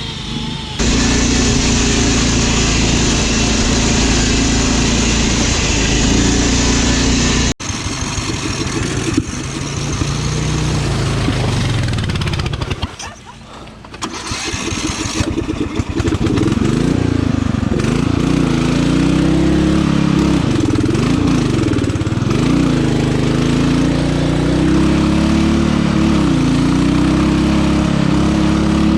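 Riding lawn mower engine running hard, its pitch rising and falling as the load and throttle change. The sound changes abruptly about a second in and again around seven and a half seconds, and drops away briefly near the middle before coming back.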